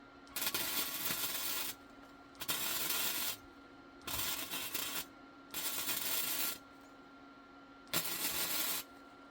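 Small Lincoln MIG welder running five short welds on steel, each about a second of steady crackling sizzle with short pauses between, over a constant low hum.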